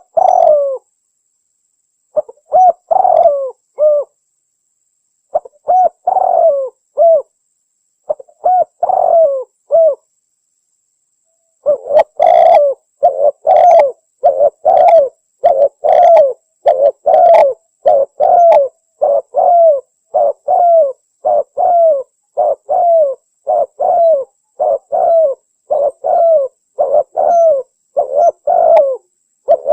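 Spotted dove cooing on a recorded hunting lure call, sold as a female calling a male. At first there are short groups of a few coos with pauses between them. From about twelve seconds in, an unbroken run of coos follows at roughly one and a half a second, with dead silence between the notes.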